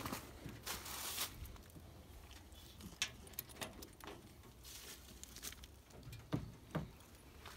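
Faint scattered clicks and short rustles of a dog's collar and lead being fastened by hand.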